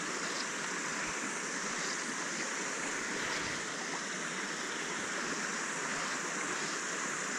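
Small shallow stream running over a gravel and cobble bed: a steady rush of flowing water.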